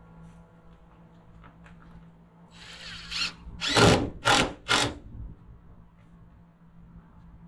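Cordless drill driving a screw into a wooden board: one run that builds up, then three short bursts in quick succession as the screw is seated.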